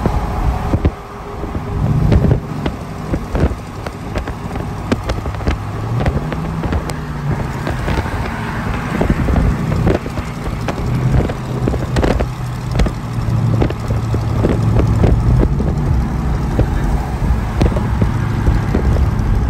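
Wind buffeting the microphone over road and tyre noise from pickup trucks at highway speed, with irregular flapping thumps throughout. Under it an engine's low hum rises in pitch about six seconds in and then holds steady.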